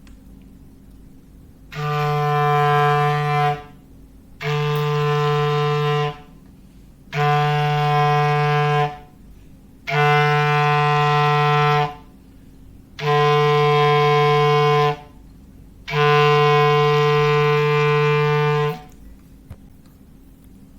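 Clarinet imitating a foghorn: six long, steady blasts on one low note, its bottom note, each about two seconds with a second's pause between, the last one a little longer.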